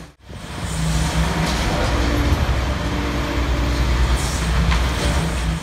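Diesel engine of a high-reach demolition excavator running steadily, with a few faint knocks.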